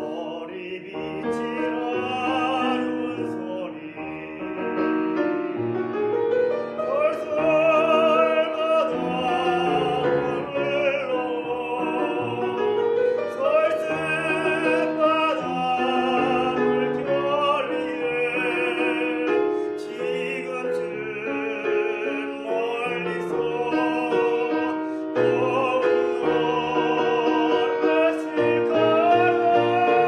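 Tenor singing a Korean art song in operatic style with vibrato, accompanied on a Pramberger grand piano; the music starts abruptly out of silence.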